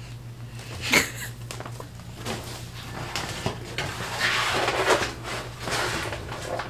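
Thin clear plastic bio basin liner crinkling and rustling as it is handled and pressed into the bottom of a glass reptile enclosure, with a sharp crackle about a second in and the longest stretch of crinkling about two-thirds of the way through.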